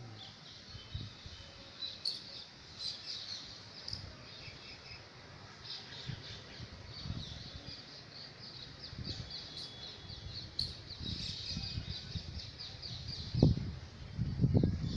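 Many small birds chirping continuously in the open air. A few low thumps come in near the end.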